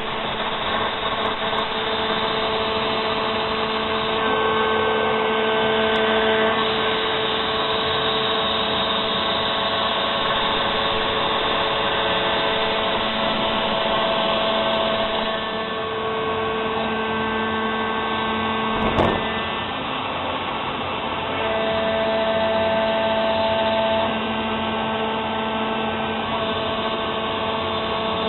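Joe 2006 CNC router's spindle and 1/4-inch solid-carbide O-flute spiral bit cutting 3/4-inch HDPE plastic: a steady whirring noise with whining tones that shift in pitch every few seconds as the cut changes. One sharp click about two-thirds of the way through.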